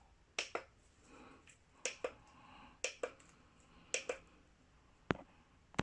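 Small, sharp plastic clicks, mostly in quick pairs about once a second, then two single sharper clicks near the end.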